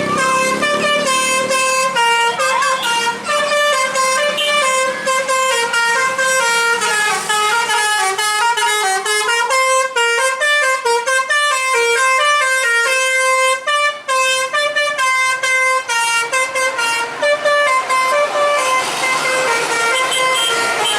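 Bus telolet horn, a multi-tone musical air horn, playing a quick tune of short stepped notes that hop up and down in pitch several times a second without a break.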